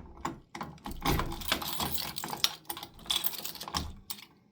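Irregular rapid clicking and light metallic rattling of a bunch of keys being handled and tried in a fire alarm pull station's lock.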